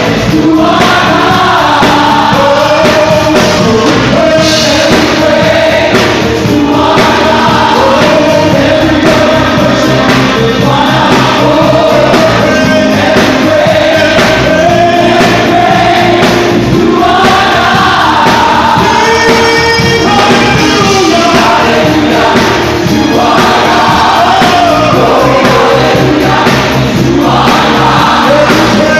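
Live gospel music: a choir singing with a full band playing a steady beat.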